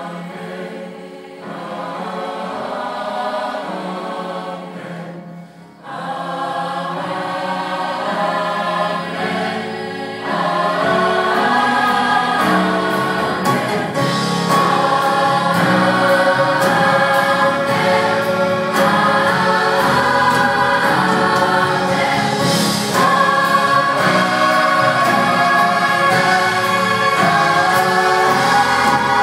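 Large mixed choir singing in harmony, with a short break about five seconds in, then swelling louder from about ten seconds in.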